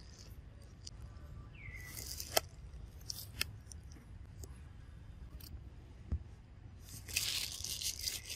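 Dry leaf litter rustling and crunching in short bursts, with a few sharp snaps, the loudest stretch near the end.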